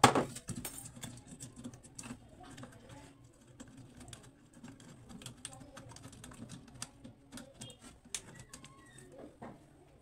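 Scattered small clicks and knocks of a home-theatre amplifier board and its wiring being handled and worked free of a wooden back panel, with one sharp knock at the very start.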